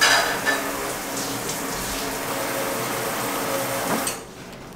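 Kitchen tap running into the sink during dishwashing, a steady rush of water that is shut off about four seconds in.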